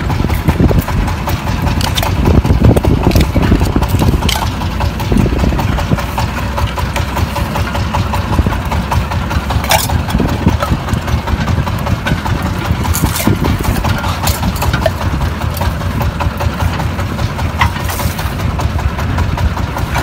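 Small fishing boat's engine running steadily, with occasional sharp knocks and clatter of drink cans and conch shells on the trap line being hauled aboard onto the deck.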